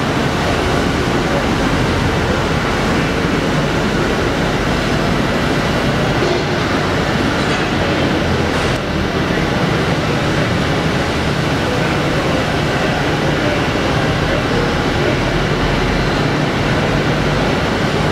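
Steady loud mechanical noise of running machinery, an even rumble with a faint steady hum through it.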